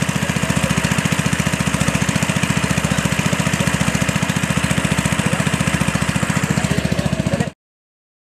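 Small petrol engine of a water pump running steadily with a fast, even beat. It stops abruptly near the end.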